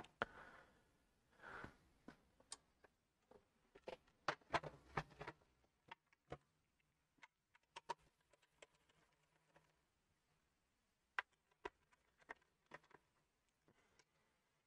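Faint scattered clicks and taps from small parts and tools being handled on the opened PS4 Pro console, with a couple of soft rustles in the first two seconds and a quick run of clicks about four to five seconds in.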